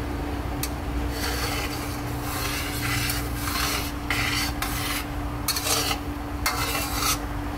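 A metal spatula scrapes across a steel wok in a series of strokes while stirring a simmering sauce, with a steady low hum underneath.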